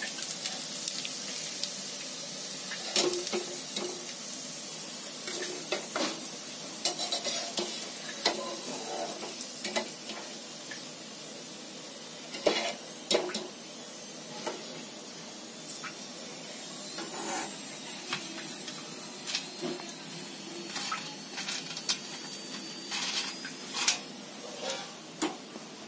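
Hot oil sizzling steadily in a kadhai as rice kurkure deep-fry, with scattered clinks and knocks of a metal slotted spoon against the pan.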